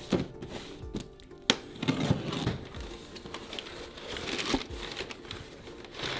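Packaging crinkling and rustling irregularly as a parcel is unwrapped by hand, with a sharp click about a second and a half in.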